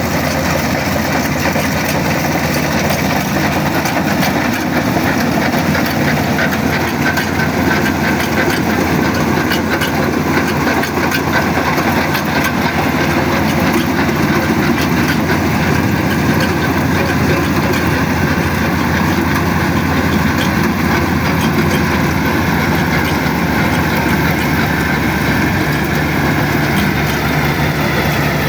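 Kubota DC-35 combine harvester running steadily while harvesting rice: a continuous engine and machinery drone, with a slight slow wavering in pitch.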